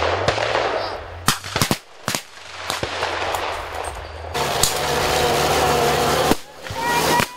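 Reenactment blank gunfire: scattered sharp shots, with a quick run of several about one and a half to two seconds in. After that, a steady engine sound from an old military truck.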